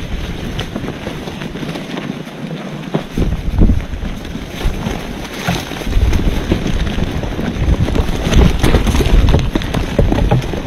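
Wind rumbling on the microphone in gusts, with many irregular knocks and scuffles.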